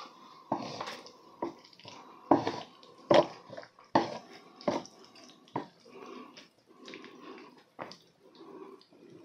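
Chopsticks clicking against a ceramic bowl and into the noodles, a string of sharp clicks in the first five seconds, then softer wet, sticky sounds as sauce-coated Buldak stir-fried noodles are stirred and lifted.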